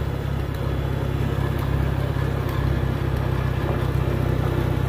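Old tractor's engine running steadily as it drives along, a constant low hum.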